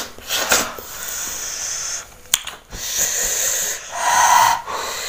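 A person hissing sharp, wheezy breaths in and out through the mouth about four times, the loudest near the end, the way one tries to cool a mouth burning from very hot chili sambal. There is a single sharp click about two seconds in.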